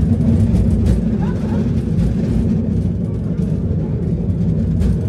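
San Francisco cable car running, heard from on board: a steady low rumble with a few sharp clicks.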